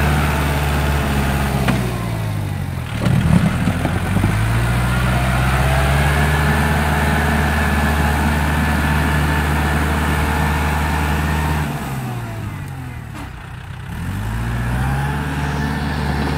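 Kubota tractor's diesel engine running under load while working a front loader. Its pitch drops and climbs back twice as the engine slows and picks up again, with a brief rough, louder burst about three seconds in.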